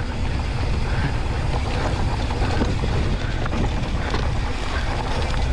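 Wind buffeting the camera microphone over the tyres of a Polygon Siskiu T8 mountain bike rolling down a dirt trail, with a few small knocks and rattles from the bike over bumps.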